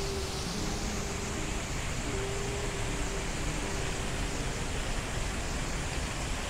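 Steady, even hiss of outdoor city ambience, with faint hums coming and going.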